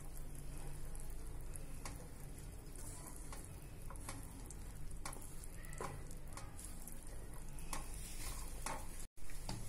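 Wooden spatula stirring flour into a hot ghee, milk and sugar mixture in a nonstick pan, with light irregular scrapes and taps against the pan.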